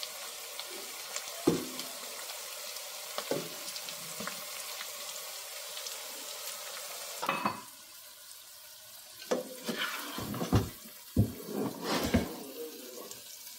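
Steady sizzle of the goat-meat asun cooking in its pan on the stove, with a few light spoon clicks. About halfway through the sizzle drops away and a spoon knocks and scrapes against the pan in quick, irregular strokes.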